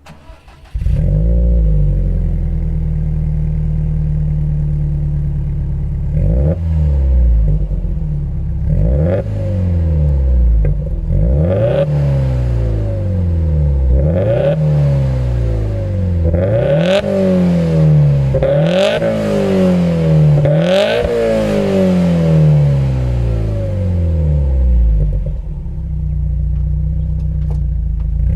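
Subaru WRX STI's turbocharged flat-four through an HKS aftermarket muffler, idling and then revved in quick blips several times, each rising sharply and falling back, before settling back to idle near the end.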